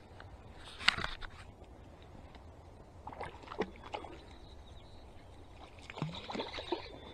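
Water splashing in three short bursts, the loudest about a second in: a hooked golden trout thrashing at the surface as it is played in.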